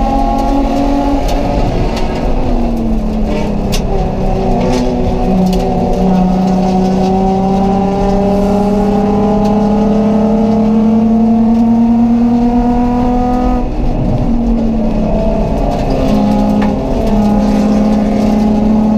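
Race car engine heard from inside the cockpit, pulling hard through the gears at a race start: the pitch climbs, drops at quick upshifts in the first few seconds, then rises through one long pull of about eight seconds before a brief lift and more shifts near the end.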